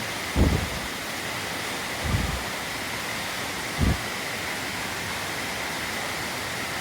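Steady rush of a waterfall and stream. Three short, low puffs of breath hit the microphone about every second and a half to two seconds, from a hiker out of breath on the climb.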